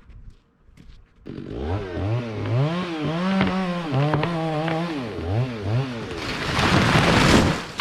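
Two-stroke chainsaw revving up and down repeatedly during tree felling, its pitch rising and falling with the throttle. Near the end comes a loud rushing noise lasting about a second.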